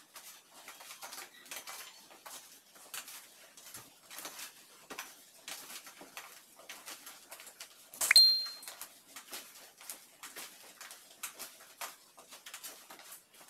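Curtain being threaded onto a metal curtain rod: a run of small clicks and clinks with fabric rustling, and one sharp metallic clink with a brief ring about eight seconds in.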